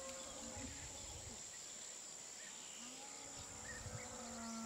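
Steady high-pitched drone of insects, with a faint, long, low pitched tone from about three seconds in.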